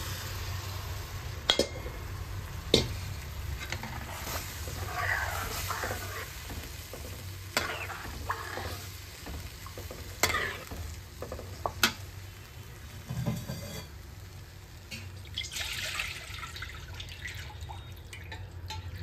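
A spoon stirring gram-flour (besan) batter into hot tempering in a metal kadhai, scraping the pan with some sizzling and five sharp knocks of the spoon against the metal.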